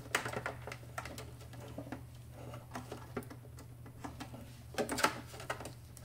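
Light clicking and rattling from a plastic-and-metal centrifuge door-lock assembly and its cable being handled inside the housing. There is a cluster of clicks just after the start and another about five seconds in.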